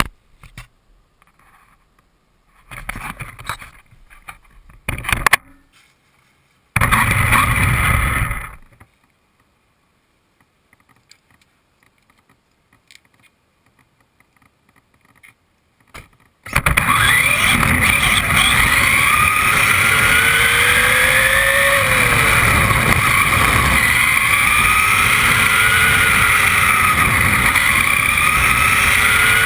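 Electric RC truck driving with the camera riding on it: loud steady rolling and wind noise with the motor and gears whining, the whine rising and falling with speed. Before that, about halfway in, only a few knocks and rustles of handling and one short burst of noise.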